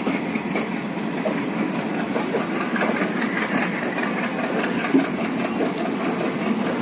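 Express train running on the track as it pulls out: a steady rumble of wheels on rail with scattered small clicks.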